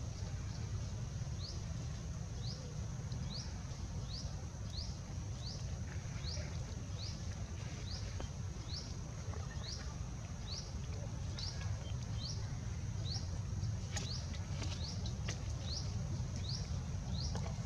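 Forest ambience: a short rising chirp repeats evenly about every three-quarters of a second over a steady high hum and a low rumble, with a few faint clicks near the end.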